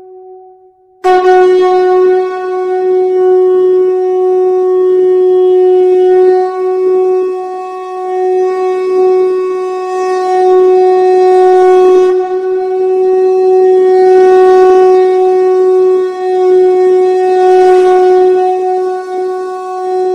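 Shankha (conch shell trumpet) blown in one long held blast on a single steady note, starting loudly about a second in and swelling slightly in loudness as it is held.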